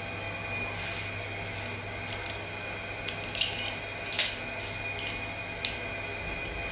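Steady low hum inside an elevator car, with a faint steady whine above it. A few light clicks and rustles from the phone being handled come through the middle.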